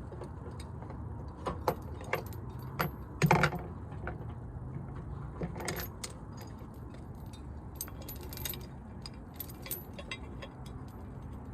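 Trailer safety chains clinking and rattling as they are hooked onto a steel hitch-lock clip, in scattered metallic clinks with a louder clank about three seconds in.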